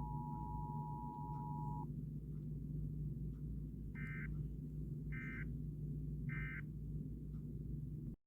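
An Emergency Alert System sequence over a steady low hum. A two-note attention tone ends about two seconds in, and about two seconds later come three short warbling data bursts a little over a second apart: the end-of-message code that closes an EAS alert. The sound cuts off abruptly just before the end.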